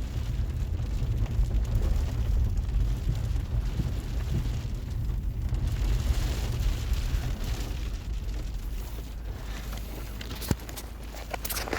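Wind buffeting the microphone over the steady hiss of falling hail mixed with snow, with a single sharp tap about ten seconds in.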